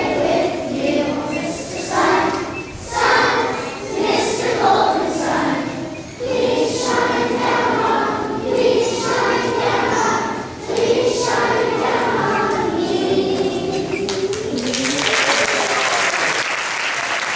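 A group of voices singing together, the song ending about fifteen seconds in and applause starting right after.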